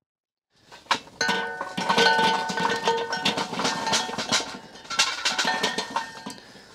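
Lit charcoal poured from a chimney starter into a steel kettle cone on a kettle grill's grate: a dense clatter of coals tumbling onto metal, with ringing metal tones, starting about a second in and thinning out near the end.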